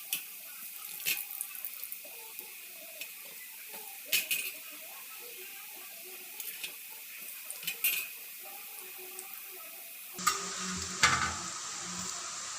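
Murukku deep-frying in hot oil with a steady sizzle, and a few sharp metal clinks of utensils against the pan. About ten seconds in, the frying gets louder and fuller, with more clatter.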